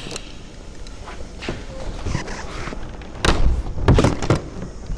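Hard plastic clacking and knocking as the plastic grille section of a Toyota LandCruiser 300 Series front bumper is pried and pulled free of the bumper cover, its retaining clips letting go. A light knock comes about a second and a half in, then a cluster of loud sharp knocks and thumps a little past three seconds in.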